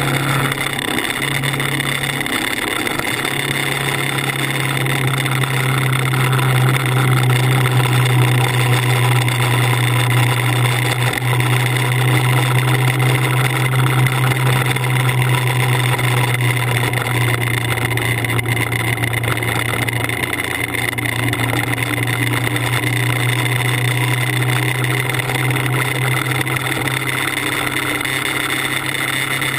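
Motorcycle engine running at a steady cruising speed with wind rush, a constant drone that briefly dips a couple of times in the first few seconds.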